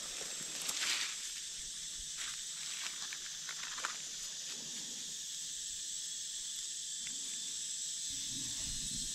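Steady high-pitched drone of insects in dry forest, with crackling rustles of dry leaves and twigs underfoot during the first few seconds.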